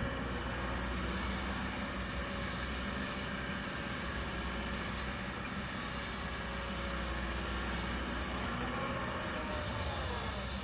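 Kobelco hydraulic excavator's diesel engine running steadily under work, with a whine that bends up and down in pitch near the end.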